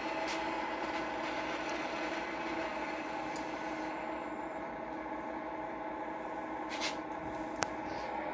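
Small electric motor of an O scale model railroad running with a steady hum, with two sharp clicks near the end.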